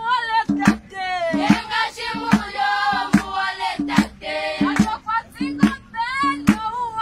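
A group of women singing an Owambo dance song together, with sliding, gliding melodies. Sharp percussive beats, about two a second, keep time under the voices.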